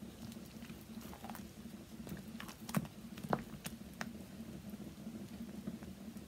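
Wooden stick stirring thick hot process soap batter in a ceramic crock-pot: soft, quiet scraping and patting, with several light clicks of the stick against the crock in the middle.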